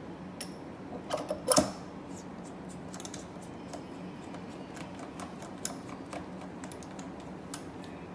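Small metal clicks and ticks as the CO2 laser's articulated arm is seated and screwed onto its port on the machine, with a louder knock about a second and a half in. A low steady hum runs underneath.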